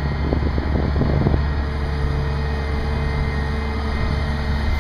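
Diesel engine of a mobile crane running steadily under load while it hoists a heavy rooftop HVAC unit, a deep even drone.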